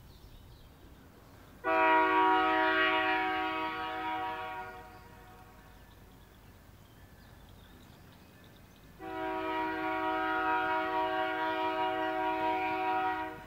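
Canadian Pacific diesel locomotive's air horn sounding for a grade crossing. It gives two long blasts: the first lasts about three seconds and fades away, the second lasts about four seconds and cuts off sharply near the end.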